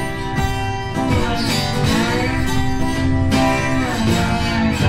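Background music led by strummed acoustic guitar, with a steady run of chords.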